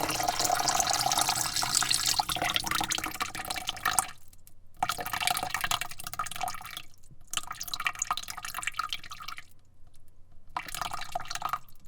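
Water pouring into a bucket. It runs steadily for about four seconds, then comes in three shorter pours with brief pauses between them.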